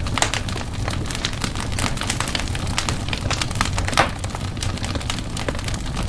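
Wood fire in a fireplace crackling and popping: many irregular sharp snaps over a steady low rumble of the flames, with one louder pop about four seconds in.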